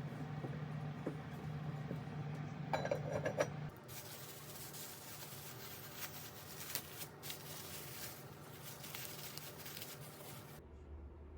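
Kitchen cooking sounds: a low steady hum with light clicks, a few ringing clinks of dishes about three seconds in, then a steady hiss with small crackles that stops abruptly near the end.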